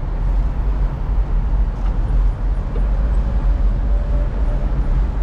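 Wind rumbling on the microphone while riding a bicycle over brick paving, with city traffic in the background.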